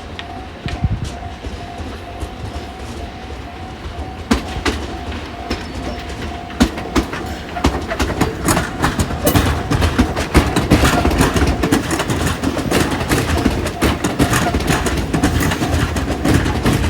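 Electric commuter train running past, its wheels clicking repeatedly over rail joints; the sound builds and grows louder from about eight seconds in.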